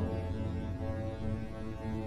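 Intro music of long held notes over a low drone.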